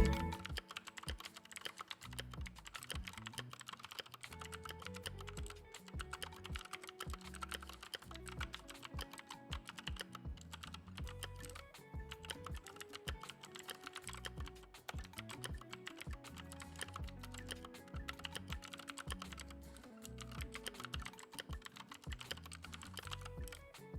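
Typing on a Keychron K2 mechanical keyboard with clicky Gateron Blue switches: a continuous, irregular run of sharp key clicks.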